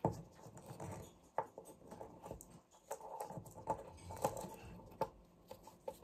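Alexandrine parakeet's beak and claws tapping and scratching on a wooden tabletop and an orange plastic ball with holes: irregular clicks and scuffs as the bird handles the ball.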